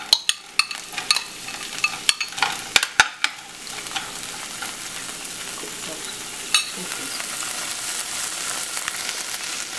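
Frozen mixed vegetables spooned out of a glass bowl into a grill pan of hot olive oil: sharp clicks and taps of the spoon and falling vegetables for the first few seconds, then a steady oil sizzle that builds toward the end as they start to fry.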